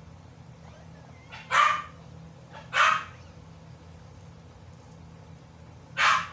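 A dog giving three short yelps, two about a second apart and a third about three seconds later.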